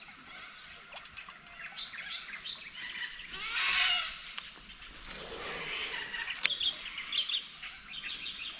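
Small birds chirping and calling repeatedly, with a brief rushing noise a few seconds in and another around five seconds, and a few sharp clicks shortly after.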